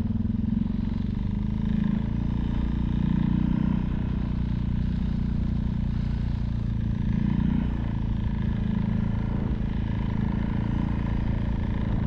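Off-road vehicle's engine running steadily while driving over snow, picking up briefly about three seconds in and again near seven seconds.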